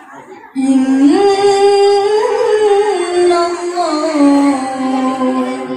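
A woman's melodic Qur'an recitation (tilawah) into a microphone: one long drawn-out phrase that begins abruptly about half a second in. The voice climbs in steps to a peak a couple of seconds in, then ornaments its way back down to the starting pitch before it stops.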